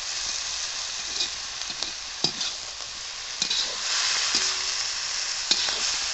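Chicken pieces and onions sizzling steadily as they fry in a kadai, stirred with a steel slotted spoon that scrapes and knocks against the pan at irregular moments.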